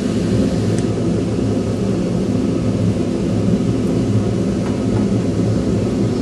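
LPG-fired gas forge burner running, a steady low rush of flame.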